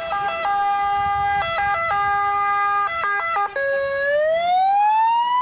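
Emergency vehicle siren. It switches abruptly between a few fixed pitches, then about three and a half seconds in goes over to a smooth rising wail.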